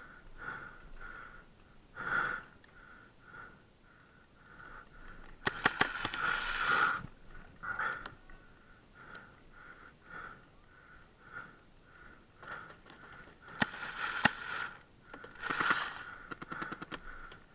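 Paintball markers going off in short rapid bursts of sharp pops: one burst about five and a half seconds in, and more about fourteen and sixteen seconds in. Between bursts a faint, even pulsing sound repeats about twice a second.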